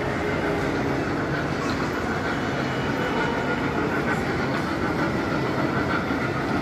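A small trackless kiddie train drives past along a shopping-mall concourse, giving a steady running noise with a faint whine, over the mall's background hubbub.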